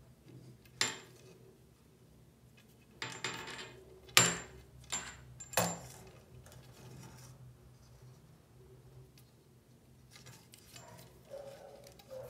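Braided stainless-steel faucet supply hose and its metal nut fitting clinking and clicking as they are handled: a handful of sharp taps in the first six seconds, then a few fainter ones near the end.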